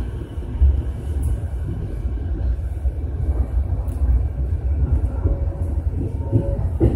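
Running noise of an E233-series electric commuter train heard from inside the front car: a steady low rumble of wheels on rail. A faint steady whine comes in about two-thirds of the way through. The first wheel clacks over rail joints start right at the end.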